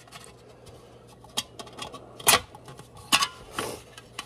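Steel wire guard clicking and scraping against a thin aluminium lamp reflector as its ends are worked into the holes in the rim: a few sharp metallic clicks, the loudest a little after two seconds in.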